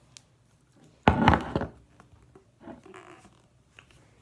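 A single dull thump about a second in, followed by fainter handling noise.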